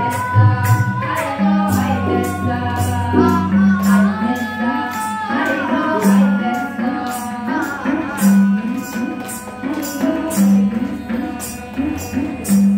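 A small group of voices singing a song in unison to tabla accompaniment, the drum strokes keeping a steady beat under the held, bending sung notes.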